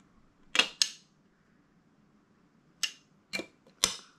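Plastic toy ice cream scoop and toy ice cream balls clicking against each other and the toy cone as they are stacked: five short, sharp clicks, a pair a little over half a second in and three more near the end.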